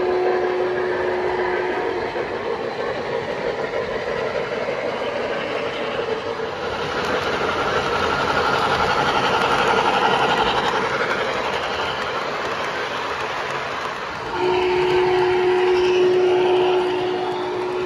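O scale model steam locomotives running, with the steam whistles of their onboard sound systems blowing. A steady whistle blast ends about two seconds in, and another starts about 14 seconds in and runs on. Between the two, the locomotives and cars rumble along the track.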